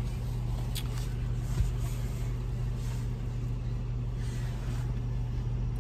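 Steady low hum of a car running, heard inside its cabin, with a single sharp click about a second and a half in.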